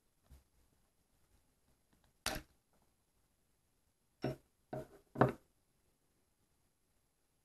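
Handling noises of needle-nose pliers and a small plastic part on a wooden tabletop: a faint click, a short scrape about two seconds in, then three short clattering sounds about half a second apart.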